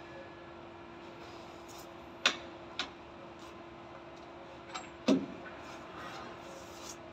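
A few sharp clicks, twice close together after about two seconds, then a louder, duller knock about five seconds in, over a steady low hum.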